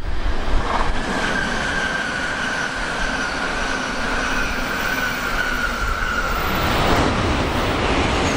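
Shinkansen bullet trains passing at speed: a 700 series Rail Star runs by with a steady rushing noise and a high whine that slowly falls in pitch. Near the end an N700 series train comes past on the near track and the sound swells.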